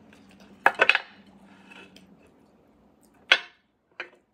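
Roasted beef marrow bones clacking against a ceramic platter as they are picked up and moved. A quick cluster of sharp clacks comes about a second in, then a single sharp clack a little after three seconds and a lighter one near the end.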